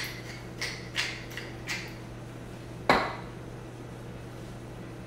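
Tall wooden pepper mill twisted in about four short grinding bursts, grinding pepper. About three seconds in it is set down on the counter with a single sharp knock, the loudest sound here.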